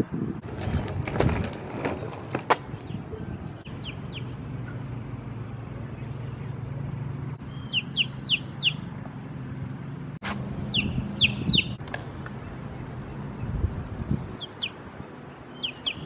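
Young chick peeping: short, high, downward-sliding peeps in quick runs of two to five, repeated every few seconds. Near the start, about two seconds of rattling from the skateboard's wheels rolling over concrete.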